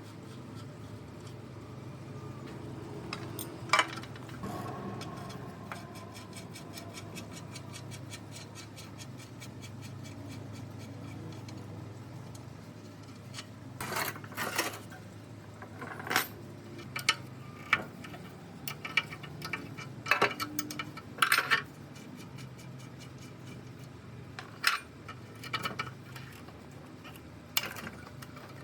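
Small metal parts and hand tools clinking and tapping irregularly, with a cluster of clinks in the second half, over a steady low hum.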